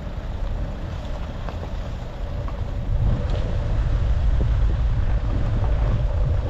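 A car driving: a steady low rumble of engine and road noise with wind on the microphone, getting louder about three seconds in.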